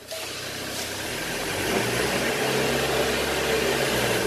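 A motor or engine running steadily: a low hum under a noisy hiss, growing a little louder over the first two seconds.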